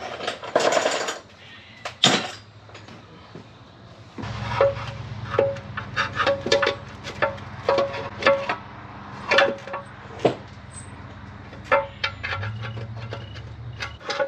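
Irregular metallic clinks and clicks of tools and parts being handled in a car's engine bay, with a brief rustle about a second in. A low steady hum starts about four seconds in and stops just before the end.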